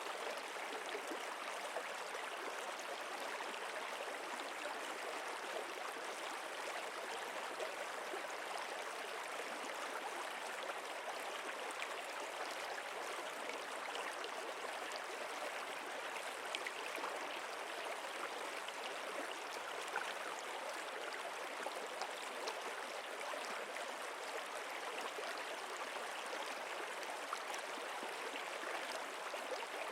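Steady, even rushing of a stream or river flowing, with small splashing ticks in the water.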